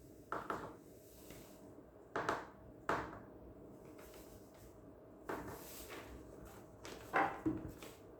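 Several short knocks and clatters of objects being handled and set down, about five in all, each with a brief ring, over a faint steady hum.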